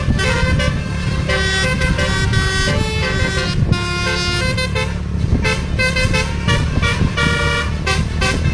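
Basuri musical horn on a bus playing a slow tune, its notes stepping up and down in pitch one after another with short breaks between them, over the steady low rumble of the bus engine running.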